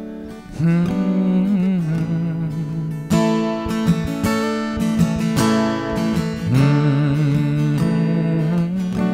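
Acoustic guitar played solo, chords ringing with firmer strums about three seconds in and again a couple of seconds later, as the introduction to a song.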